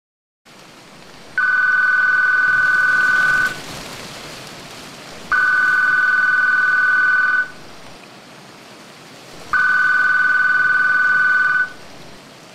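Landline telephone ringing three times, each ring a steady high two-tone sound about two seconds long with about two seconds between rings, over a low hiss.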